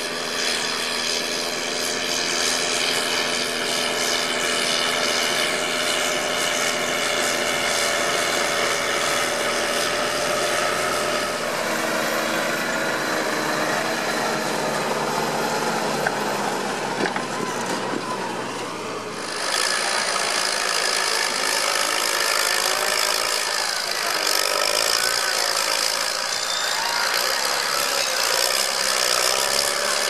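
Case IH Puma 225 CVX tractor's six-cylinder diesel engine running steadily under load while pulling a six-furrow plough on rubber tracks. The sound changes abruptly about two-thirds of the way through to a different, brighter engine note.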